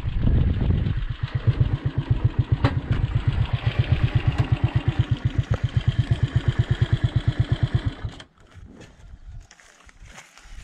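Motorcycle engine idling with a steady, even putter, then switched off about eight seconds in.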